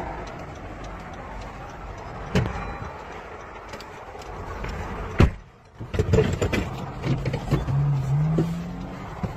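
Highway traffic hum heard from inside a car. A car door shuts with a sharp knock about five seconds in. After that a car engine runs louder, and its pitch rises near the end as the car pulls away.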